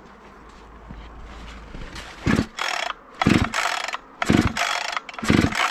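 Husqvarna 592 XPG two-stroke chainsaw being pull-started: four quick yanks of the recoil starter cord about a second apart, beginning about two seconds in.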